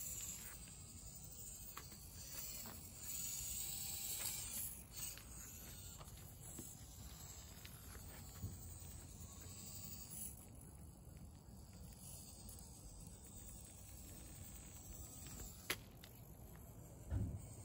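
Small scale RC crawler working over rocks: a few sharp clicks and knocks of its tyres and chassis on stone, the loudest near the end, over faint low wind rumble on the microphone.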